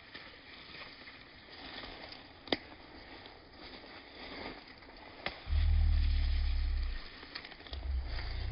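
A deep, low roar-like call lasts about a second and a half, starting just past halfway, and a second one begins near the end, over faint crackling and a few sharp clicks.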